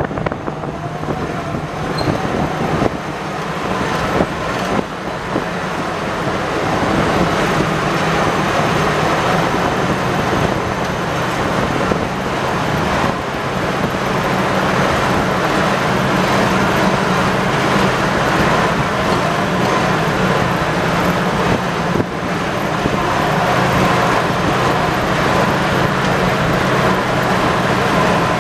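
The original World War II gasoline straight-six engine of an army DUKW amphibious duck running steadily under way, a low drone with a broad rushing wash over it, growing gradually louder over the first several seconds.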